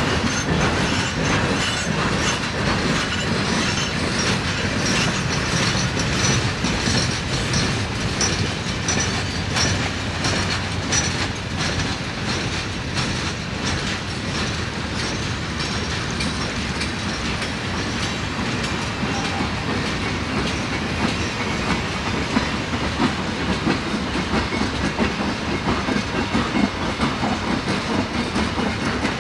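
Freight train rolling past. Its cars make a steady rumble, with a rapid, continuous clatter of wheels over rail joints.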